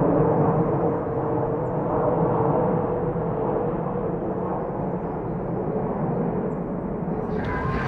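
Jet noise from the four turbofan engines of a Boeing C-17 Globemaster III flying overhead: a steady rush with a humming tone running through it. Shortly before the end it switches abruptly to louder, brighter jet noise.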